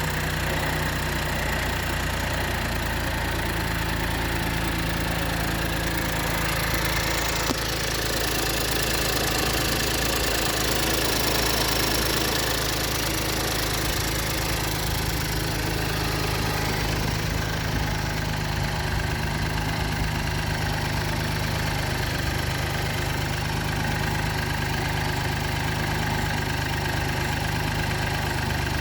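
BMW 118i's B38 1.5-litre turbocharged three-cylinder petrol engine idling steadily just after start-up, a little louder around ten seconds in. The owner calls it a bad startup sound and wonders whether bad spark plugs are the cause.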